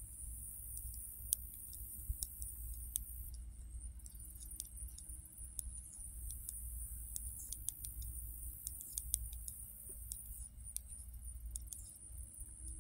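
Knitting needles clicking and tapping against each other as stitches are worked, light irregular clicks, sometimes several in quick succession, over a low steady rumble.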